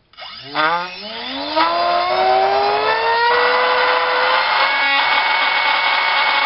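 A2212 2700kv brushless outrunner motor spinning a small ball-nose propeller on a thrust stand: a whine that climbs quickly in pitch over the first two seconds as the throttle comes up, then holds high and steady. The run is rough, with a vibration that is called horrible.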